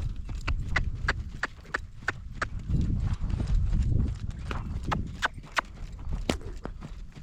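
A horse's hooves trotting on dirt: sharp, evenly spaced beats about three a second, with a louder low rush around the middle.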